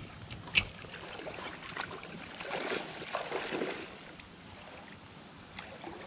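Faint outdoor noise of a slow-flowing river, with a single sharp click about half a second in.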